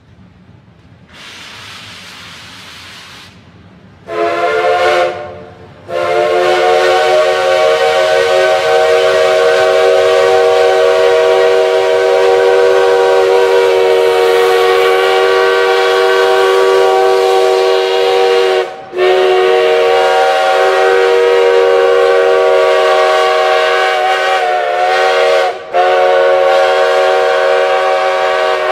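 Chime steam whistle of Pacific Coast Shay No. 2, a geared logging locomotive, sounding several tones at once. A short hiss of steam comes first, then a brief toot, then a long steady blast that breaks off briefly about two-thirds through and dips again near the end.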